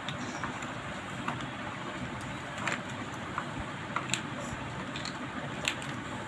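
Scattered light clicks and taps of small plastic toys being handled, about half a dozen spread irregularly, over a steady background noise.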